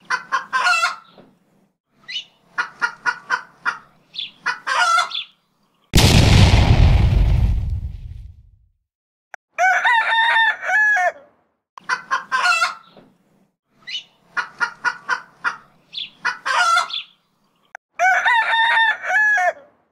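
Chickens clucking in short quick runs and a rooster crowing twice. About six seconds in, a sudden loud boom dies away over a couple of seconds.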